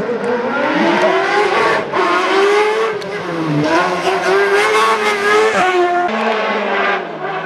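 Race car engine revving hard at high rpm, its pitch rising and dipping again and again as the driver accelerates and lifts through the slalom, with a sharp drop in revs about six seconds in before it climbs again.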